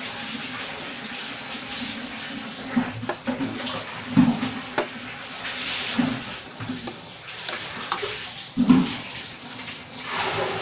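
Chicken simmering in coconut milk in a metal wok, a steady bubbling hiss, while a silicone spatula stirs through it, with a few louder strokes about 4, 6 and 9 seconds in.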